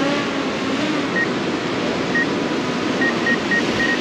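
DJI Air 2S quadcopter hovering and descending close overhead, its propellers giving a steady buzzing hum that wavers in pitch as it manoeuvres to land, over wind and surf. Short high electronic beeps sound about six times, closer together toward the end.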